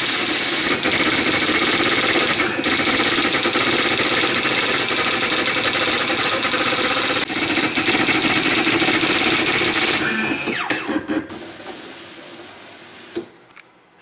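Juki 6100 daisy wheel printer printing: a rapid, continuous clatter of the print hammer striking the spinning daisy wheel. It winds down about ten seconds in, leaving a few scattered clicks as the page finishes.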